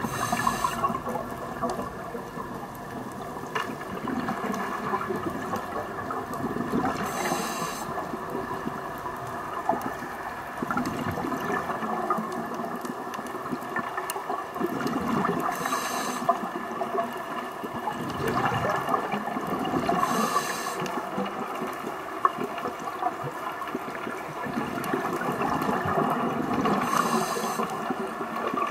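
Underwater ambience picked up by a diver's camera: a continuous hiss and fine crackle of the water with low bubbling surges. About every four to eight seconds a short hiss sounds, five times in all, typical of a scuba regulator's breathing cycle.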